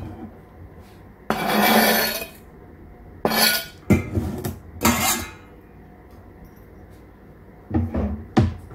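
Chef's knife scraping chopped parsley across a plastic cutting board and into a stainless steel bowl, the blade clinking against the bowl, in a long scrape followed by several shorter scrapes and knocks. Two sharp knocks near the end.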